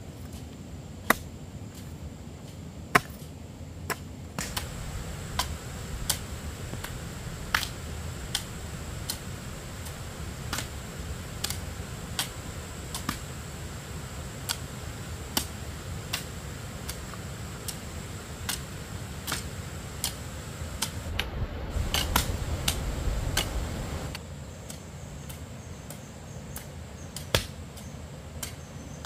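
Repeated sharp chopping strikes, roughly one a second, with a louder rush of low noise for a few seconds about three quarters of the way through.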